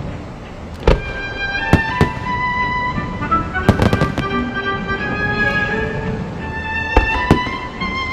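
Aerial fireworks bursting in a series of sharp bangs, several in quick succession near the middle, over symphonic-rock music with long held notes.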